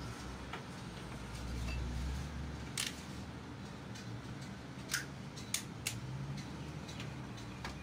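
Plastic cap of a milk jug being twisted and pried open by hand, with about four sharp plastic clicks and snaps spread over a few seconds. A brief low rumble comes about a second and a half in.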